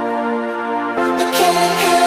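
Background music: sustained synthesizer chords that change about a second in, with a brighter swell after the change.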